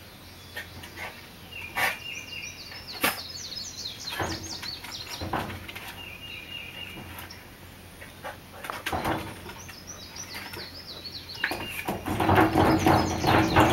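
Birds chirping in short repeated calls, with scattered knocks and scrapes of a small dog's paws and nose against a wheelbarrow's rubber tyre and wooden porch boards. A louder burst of rapid scrabbling and thumping comes near the end as the dog rears up and paws at the wheel.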